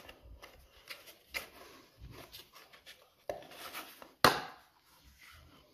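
Plastic air filter cover on a lawn mower engine being pried at its clip: scattered small clicks and rubbing, then one loud sharp snap a little past four seconds in as the stiff cover pops free.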